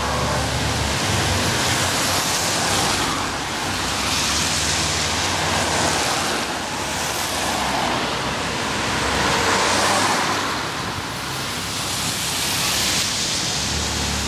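Cars passing on a rain-soaked road, their tyres hissing through the water in repeated swells. Ferrari engines rumble low at slow speed near the start and again near the end.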